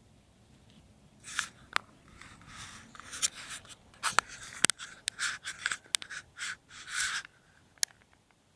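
Papillon dog chewing a raw chestnut: a series of crisp cracks and scratchy crunches over several seconds, with a couple of lone clicks near the end.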